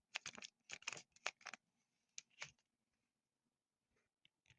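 Faint crinkles and taps of fidget toys being handled, clustered in the first second and a half, then near silence with a few soft ticks near the end.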